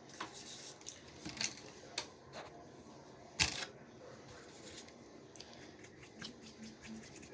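Small clicks and taps of makeup items being handled, with one louder knock about three and a half seconds in.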